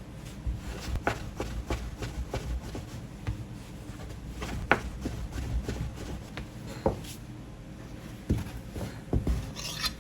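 Hands working dumpling dough at a wooden worktable: soft rubbing with scattered light taps and knocks, a few sharper ones, and a short hiss near the end.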